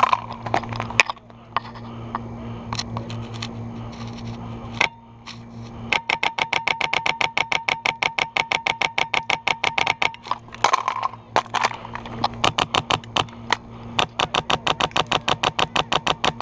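Airsoft gun fire: long runs of rapid, evenly spaced shots, one starting about six seconds in and another carrying on through the last few seconds. Scattered single clicks come before the first run.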